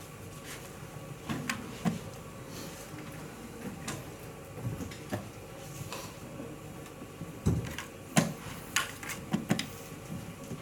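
Playing-hall room tone with scattered light clicks and knocks of draughts play: pieces set down on boards and game-clock buttons pressed, with a cluster of them near the end.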